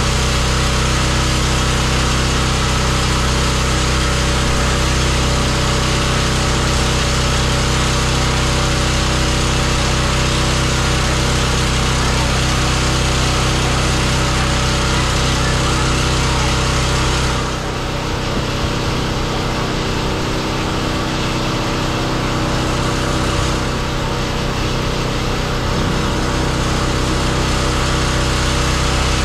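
Pressure washer running steadily: a small engine's hum under a hiss of spray. About two-thirds of the way through, the low hum thins and the sound drops a little, then carries on.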